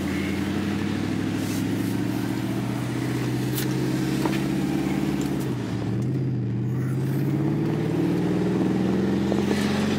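Dodge Charger SRT8's 6.4-litre HEMI V8 heard from inside the cabin while driving. The engine note holds steady, dips sharply about halfway through, then climbs steadily as the car accelerates, and drops again right at the end.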